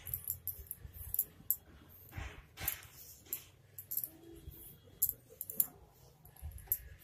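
Irregular light clicks and rustling from hands working macrame cord and plastic beads, with a faint low hum underneath.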